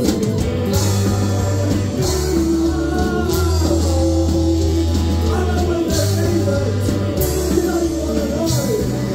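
Live rock band playing loud: electric guitars and bass over drums with cymbals, with a trombone in the line-up; the low bass notes change every second or two.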